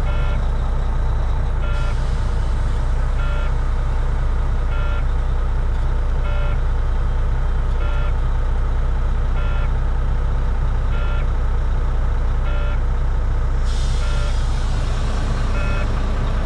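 Volvo D13 inline-six diesel idling, heard from inside the truck's cab, with a dashboard warning chime beeping about every second and a half; the beeps stop and a hiss comes in near the end.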